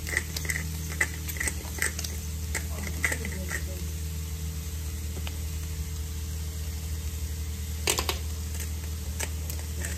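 Hand pepper grinder twisted over a pan, grinding black pepper in a run of quick crunching clicks for the first few seconds, over a steady low hum. A single sharp knock about eight seconds in.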